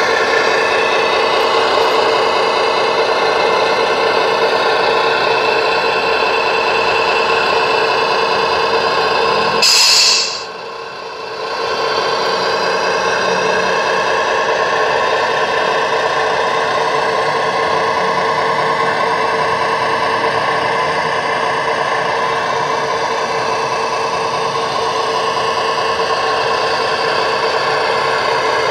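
Radio-controlled model Scania truck running, a steady mechanical whine with a fixed pitch. About ten seconds in there is a short sharp hiss, after which the sound briefly drops away and then returns.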